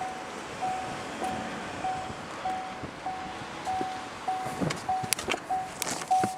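An electronic beeper sounding a steady high tone over and over, about three beeps every two seconds, over outdoor street and wind noise, with a few sharp clicks and knocks in the second half.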